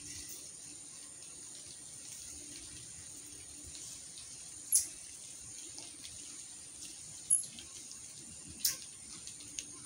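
Outdoor ambience after heavy rain: a steady high hiss, broken by three sharp drip-like clicks about five, seven and nine seconds in.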